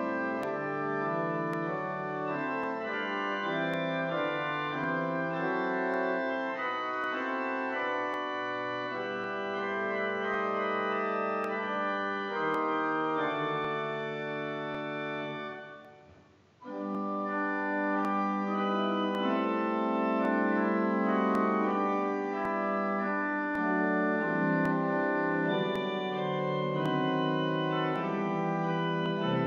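Church organ playing slow, sustained chords. The music dies away briefly about halfway through, then starts again.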